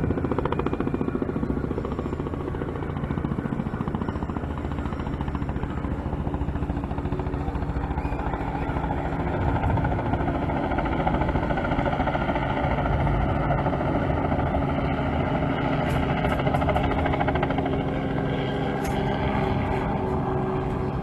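An engine running steadily with a low, even drone.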